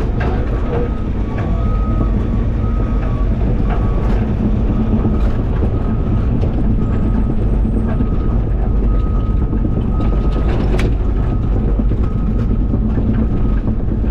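CAT 323 excavator's diesel engine running steadily under load with its hydraulics working, with a few sharp clanks from the machine or bucket. An intermittent, irregular high beeping sounds throughout.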